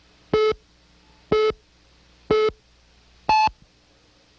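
Countdown-leader beeps on a TV programme slate: short electronic beeps once a second, four at one pitch and then a last one about an octave higher, marking the countdown to the programme start.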